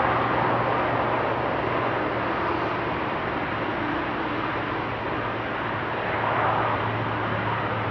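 Jet engine noise from an Airbus A380-800's four Engine Alliance GP7200 turbofans, a steady rushing sound as the airliner rolls down the runway on its takeoff run, with a faint low hum beneath.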